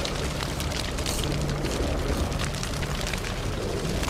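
Fire sound effect: a steady rush of burning flames with many small crackles through it and a low rumble underneath.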